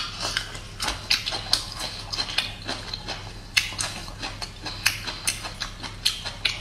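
Close-miked mouth sounds of chewing crisp bamboo shoot: a quick, irregular run of wet crunches and clicks.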